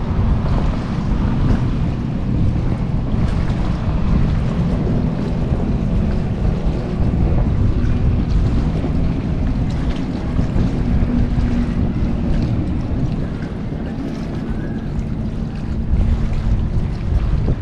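Wind buffeting the microphone: a steady, loud low rumble, with a faint steady low hum underneath.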